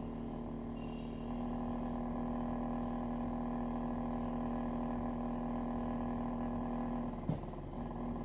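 Subwoofer driven with a steady low test tone, making the water in a dish on its cone ripple. The tone gets louder about a second in, then cuts out briefly with a click near the end before it resumes.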